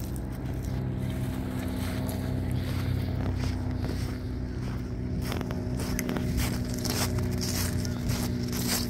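A steady low motor hum with several held tones. From about halfway through it is joined by scattered short clicks and rustles.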